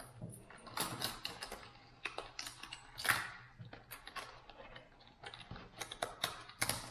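Fishing lures and their hard plastic packaging being handled: irregular small clicks, taps and rustles.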